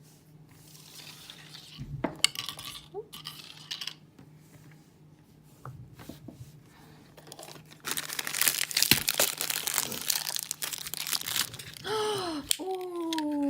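A plastic blind-bag packet being crinkled and torn open, with a burst of loud crackling rustle partway through. A voice says 'ooh' near the end.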